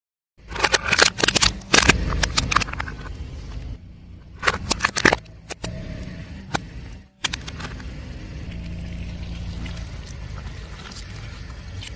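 Objects crushed under a car tyre: clusters of sharp cracks and crunches in the first few seconds, then a steady low rumble of the car rolling with only a few scattered cracks.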